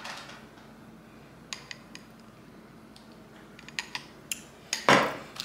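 Scattered light clinks and clicks of a glass mason jar and straw being handled, over a faint steady hum, with one louder, brief noise about five seconds in.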